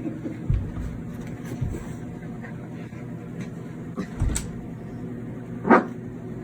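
A few dull thumps and knocks over a steady low hum, the loudest knock near the end.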